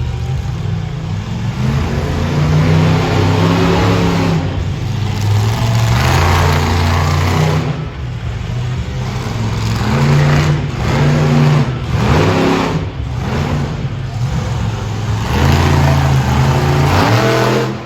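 Monster truck engine running loud under hard throttle, revving up and falling back again and again. There are short lifts of the throttle about 8 and 12 seconds in, and another near the end.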